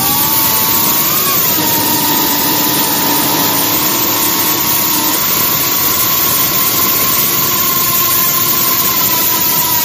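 Multirotor drone's motors and propellers running in flight: a steady whine over a rushing noise, its pitch shifting slightly as the throttle changes.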